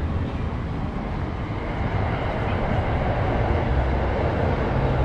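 Electric commuter train running over an elevated railway viaduct overhead. Its steady rumble grows louder about two seconds in.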